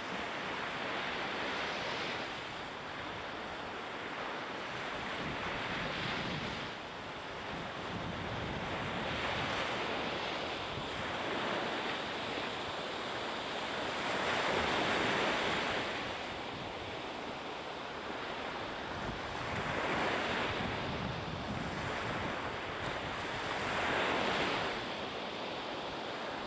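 Sea waves washing and wind blowing, a steady rush that swells and fades every few seconds, with wind buffeting the microphone.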